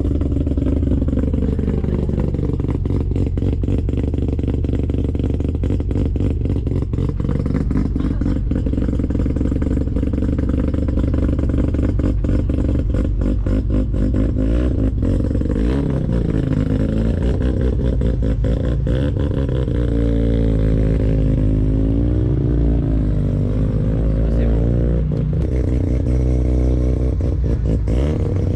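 Mazda RX-7 rotary engine idling with a choppy, lumpy brap, then the revs rising and falling in light blips through the second half.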